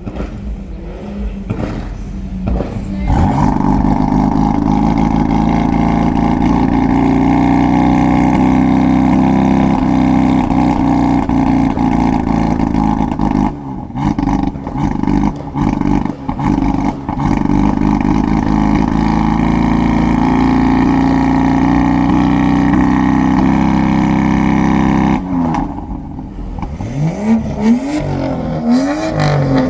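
Performance car engine held at a steady high note for about twenty seconds, dipping briefly a few times midway, then revved up and down in quick blips near the end.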